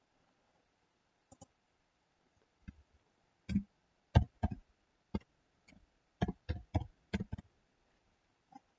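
Computer keyboard being typed on: about a dozen separate keystrokes at an uneven pace, several coming in quick runs.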